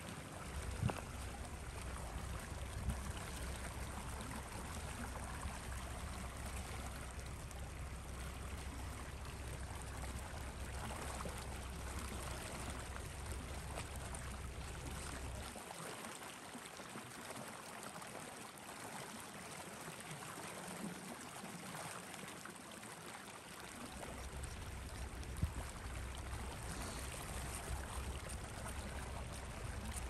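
Log campfire burning: a steady hiss with a few sharp pops, over a low rumble that drops away for about eight seconds in the middle.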